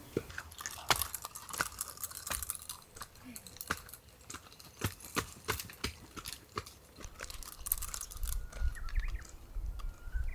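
Footsteps crunching on an outdoor trail's dirt and steps, irregular and about one or two a second. A low wind rumble on the microphone comes in near the end.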